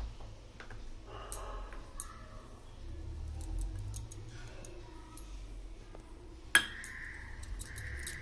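Soft handling clicks and rustles as flour is added onto raw chicken in an aluminium pot, then a sharp metallic clink about six and a half seconds in that rings on briefly, from a utensil knocking the pot.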